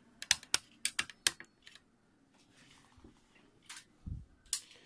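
Sharp plastic clicks and taps from handling a laptop, about half a dozen in quick succession in the first second and a half, then a dull low bump and one more click near the end.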